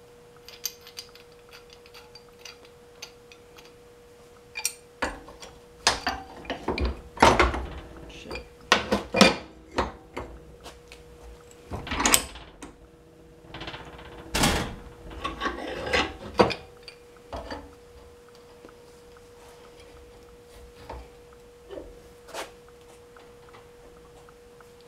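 Pipe wrench working a pipe fitting on a water pump clamped in a bench vise: irregular metal knocks, clanks and scrapes, busiest through the middle with several sharp loud knocks, and scattered light ticks at the start and end.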